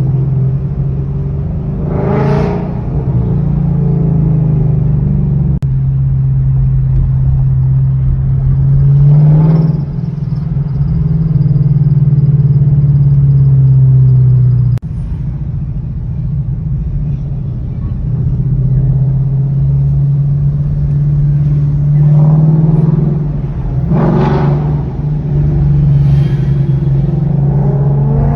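Loud Ford Mustang GT V8 exhaust running at a steady low drone while driving, with several short, louder bursts of throttle.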